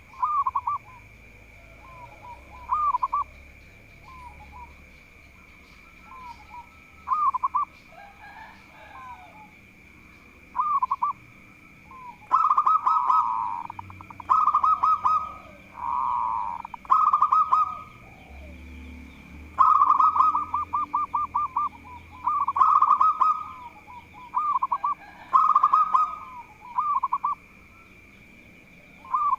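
Zebra dove (perkutut) cooing: repeated rolling, stuttering coo phrases, a few seconds apart at first and coming almost back to back from about twelve seconds in. A steady high whine runs underneath throughout.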